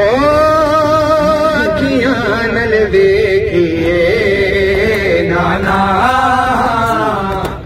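Male reciter chanting a noha, a Shia mourning lament, into a microphone. He holds a long note for about two seconds, then moves into shorter sung phrases that rise and fall.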